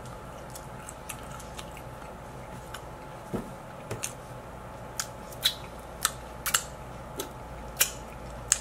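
Close-up eating mouth sounds: sharp, wet lip smacks and tongue clicks from chewing, sparse at first, then about one or two a second from about three seconds in, over a faint steady hum.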